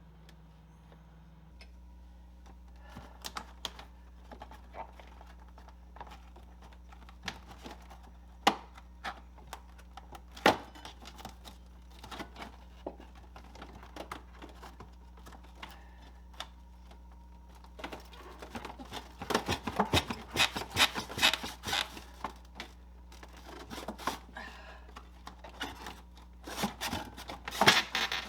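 Scattered clicks, taps and plastic crackles as the thin plastic evaporator cover panel inside a Samsung freezer is unscrewed and pried loose. The sounds come thickest in a flurry about two-thirds of the way in and again near the end. Under them runs the low steady hum of the refrigerator running.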